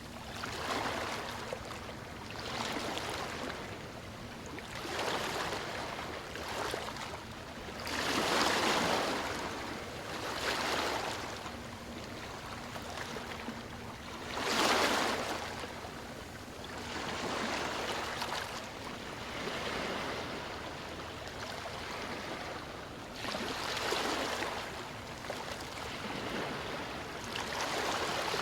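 River water flowing, a steady murmur that swells and eases every few seconds, loudest about eight and fifteen seconds in.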